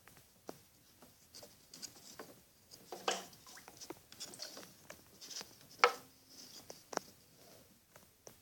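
Red-eared and yellow-bellied sliders jostling in an aquarium: scattered, irregular knocks and clicks of shells and claws against the glass and against each other. The sharpest knock comes about two-thirds of the way in.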